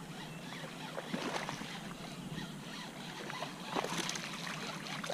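A hooked bass splashing and thrashing at the water's surface as it is reeled toward the bank, in a few short bursts, the biggest about four seconds in.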